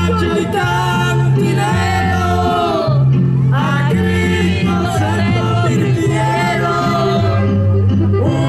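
A live band plays a Christian song in Spanish while a man sings the melody into a microphone, amplified through PA speakers over a steady bass line.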